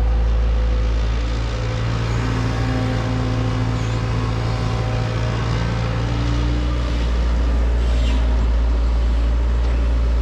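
Heavy diesel engine of earthmoving machinery running steadily with a deep hum. It eases slightly in load about a second and a half in and comes back up about seven seconds in.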